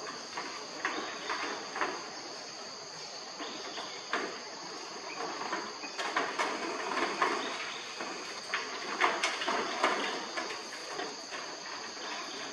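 Insects droning steadily at a high pitch, with irregular knocks and scuffs from monkeys scrambling and wrestling on a corrugated metal roof, busier in the second half.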